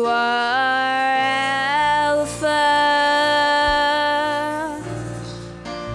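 Women singing a slow gospel worship song, drawing out long held notes that step up in pitch, over soft band accompaniment. The singing breaks briefly a little after two seconds, resumes on another long note, and fades near the end.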